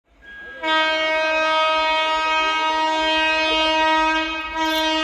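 An approaching MEMU electric train's horn sounding one long, steady blast that starts about half a second in, with a brief dip near the end.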